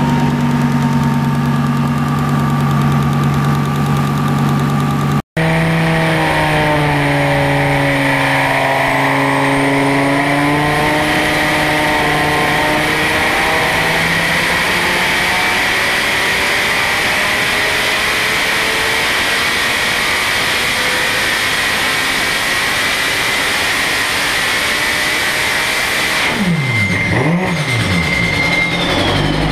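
Turbocharged Audi TT RS 2.5-litre inline five-cylinder running on an engine dyno: idling steadily at first, then after a cut a few rises and falls in revs, followed by a long full-load pull with the pitch climbing slowly for about twelve seconds. Near the end the revs drop away sharply and it settles back to idle.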